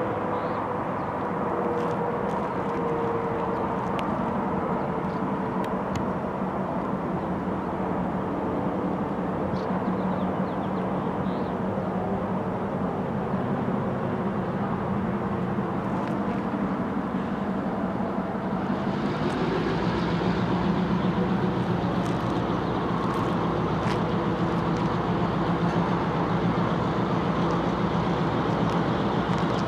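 Diesel locomotive engine running steadily with a low hum. A little over halfway through, it grows slightly louder and a hiss comes in over it.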